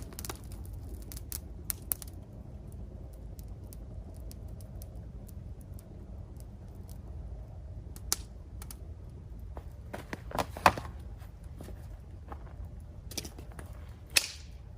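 Wood bonfire crackling with scattered small pops over a low rumble, and louder cracks about eight, ten and a half and fourteen seconds in.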